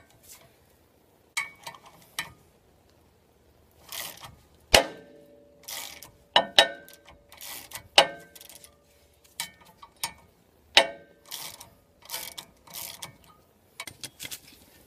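Irregular metallic clicks and knocks from a hand tool on a rusted front brake disc that has just broken free of the hub, the disc ringing briefly after several of the knocks.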